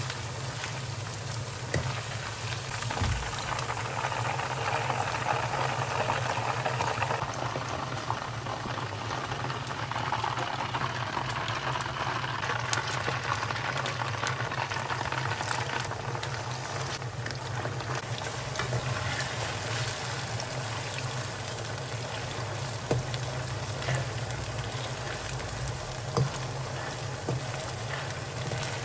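Beef strips deep-frying in hot oil in a wok: a steady bubbling sizzle, with a few sharp clicks of the skimmer or spatula against the pan.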